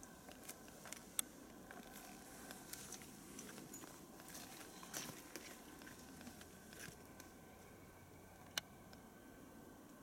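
Quiet rainforest background with a faint steady hum and scattered soft clicks and taps. The sharpest click comes about a second in, a few more come around five seconds, and another comes near nine seconds.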